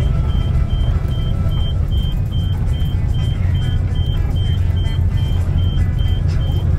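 Steady low rumble of a moving bus heard from inside the cabin, with a high electronic beep repeating about two and a half times a second.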